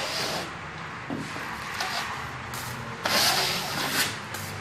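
Joint compound being drawn and scraped smooth over paper joint tape on a gypsum board seam, in a few scraping strokes, the loudest about three seconds in.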